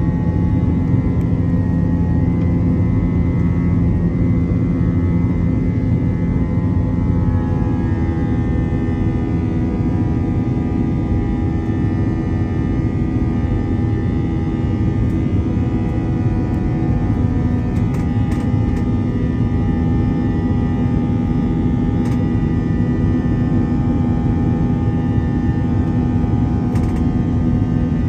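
Jet airliner cabin noise during the climb: the engines and rushing air run steadily, heard from inside the cabin by the wing, with the engines' whine dropping a little in pitch about eight seconds in.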